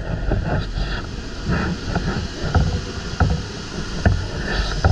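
Chevrolet truck engine idling, with a few light knocks and rubbing from the camera being handled.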